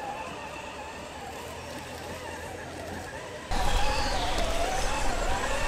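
RC crawler truck's electric motor and geared drivetrain whining as it drives, the pitch wavering up and down with the throttle. About halfway through the sound jumps louder, with a low rumble underneath.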